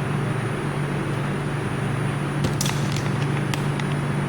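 A steady low electrical hum, with a few sharp clicks around the middle.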